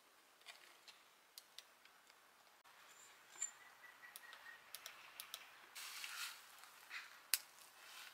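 Quiet background with faint, scattered small clicks and ticks, and a brief faint thin tone about three seconds in.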